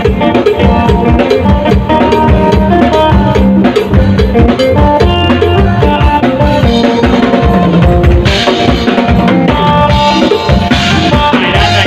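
Live band playing loudly through a large PA sound system: a drum kit drives the beat with kick, snare and cymbals under electric guitar and other melody lines. The cymbals ring out more brightly in the last few seconds.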